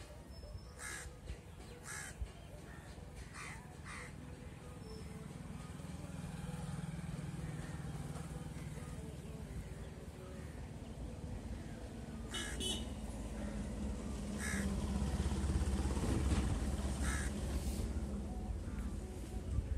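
Birds calling in short, separate calls, about eight in all, over a low steady rumble that grows louder near the end.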